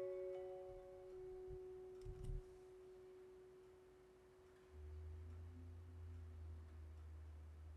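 Quiet background music: a few bell-like notes ring out and one long, soft tone is held and slowly fades, with a low steady hum coming in about five seconds in.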